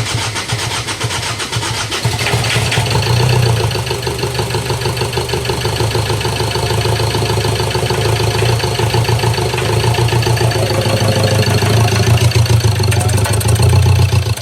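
A 2018 Ford Ranger's 2.2 L diesel engine cranking steadily on its starter without catching, the crank-no-start fault.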